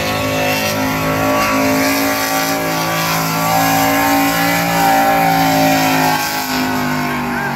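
Chevrolet pickup truck's engine held at high revs under heavy load as it drags a truck-pull sled, its pitch steady with a slight waver.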